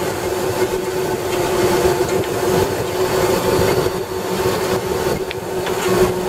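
Vectrax 20-inch vertical band saw running under power on its 220-volt three-phase motor: a steady hum over a rough, continuous mechanical noise from the motor and blade drive.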